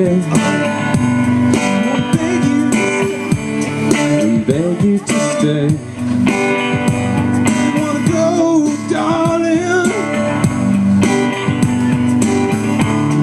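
A live two-piece band playing: electric guitar with bending lead notes over keyboard.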